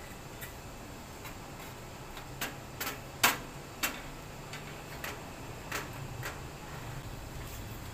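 Scattered light clicks and taps from hands working on the headlight socket's wiring while splicing it back together, the sharpest about three seconds in.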